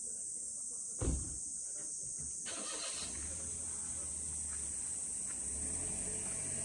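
Steady high-pitched drone of insects, with a single thump about a second in. A low vehicle engine rumble builds from about two and a half seconds in and grows slightly louder toward the end.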